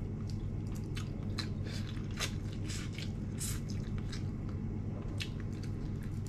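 A person chewing and crunching food close to the microphone: irregular short crunches over a steady low hum.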